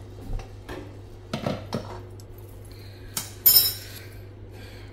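Glass lid of a steaming stainless-steel pot being lifted off and set down, with a few short knocks and then one sharp, ringing clink about three and a half seconds in, the loudest sound.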